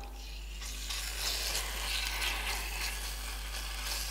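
Strips of marinated turkey breast sizzling as they go into hot oil in an electric frying pan on its highest setting. The sizzle starts about half a second in and then holds steady while a spatula moves the meat about.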